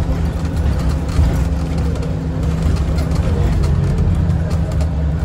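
Scania Omnicity single-decker bus (Scania CN230UB chassis) travelling at a steady pace, heard from inside the passenger saloon: a steady low rumble of the engine and road noise, with faint light rattles from the worn interior.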